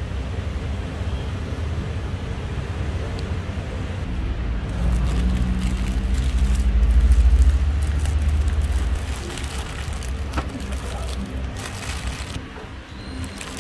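Steady road-traffic rumble, swelling as a vehicle passes about halfway through and then fading. Short crackles of paper wrapper being handled come near the end.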